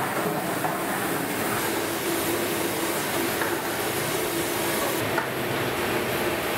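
Large gas burners running steadily under big cooking pots, a continuous rushing noise with a low hum, and a small metal click about five seconds in.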